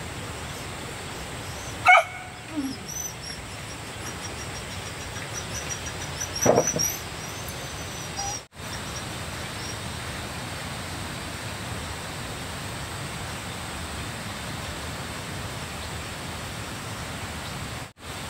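A dog barking twice, a few seconds apart, over a steady background hiss.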